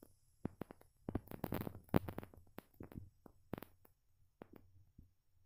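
Faint, scattered taps and clicks of fingers pressing the fiber laser welder's touchscreen control panel, a cluster of them between about one and two and a half seconds in, over a low background hum.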